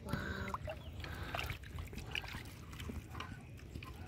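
Water splashing and sloshing in the shallows as a large hooked fish is hauled along the line to the bank, scattered small splashes over a steady low rumble. A brief voice-like call sounds at the very start.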